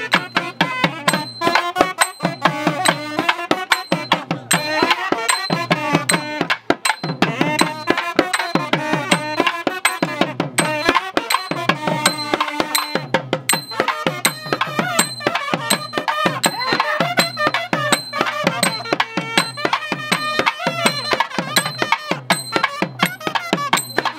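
Thavil drums beating a fast, dense rhythm under a nadaswaram playing a wavering, ornamented melody. This is South Indian temple procession music.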